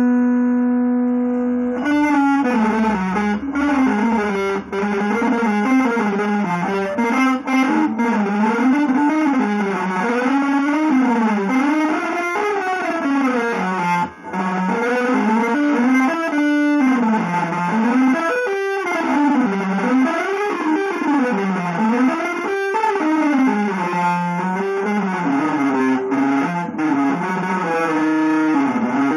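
Solo electric guitar through effects with light distortion, playing without melody. A single note is held for about two seconds, then the pitch keeps sliding and wavering up and down in an unbroken stream, with a few very short breaks.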